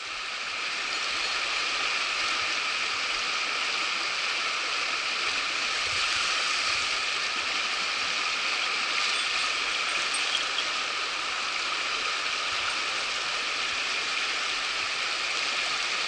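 Mountain headwater stream running over rocks and small riffles, a steady rush of water swollen with snowmelt. It fades in over about the first second.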